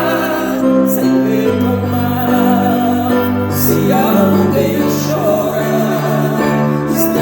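A slow song with singing: held low notes that change every second or so under a wavering sung melody, with a few brief bright hits.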